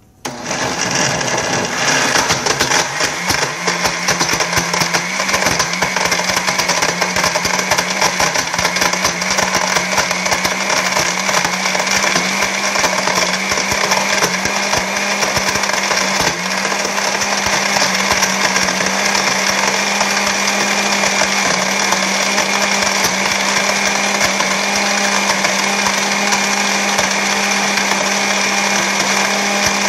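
Oster countertop blender switching on abruptly and running steadily, blending achiote paste with lime juice and water. The motor's hum rises in pitch over the first couple of seconds as it comes up to speed, then holds.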